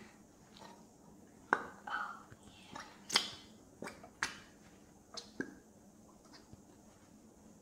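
A plastic squeeze bottle of Elmer's blue glitter glue squeezed upside down, giving irregular short pops, squelches and plastic clicks as the thick glue is forced slowly out of the nozzle.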